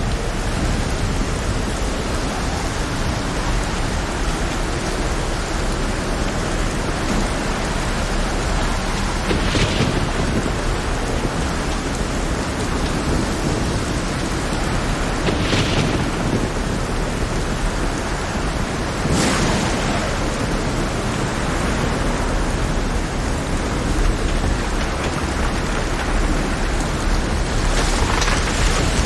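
Heavy rainstorm: a steady dense hiss of rain over a deep, continuous rumble of thunder, with four brief louder crashes spread through it.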